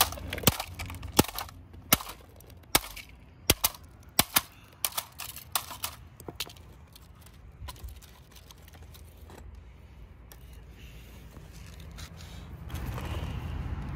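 Toy hammer striking a plastic remote-control stunt car on concrete: about a dozen sharp, irregular cracks of plastic on plastic over the first seven seconds, then the blows stop.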